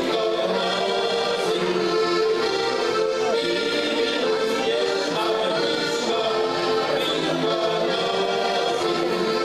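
Three heligonkas, Slovak diatonic button accordions, playing a tune together in sustained reedy chords with a moving melody, without a break.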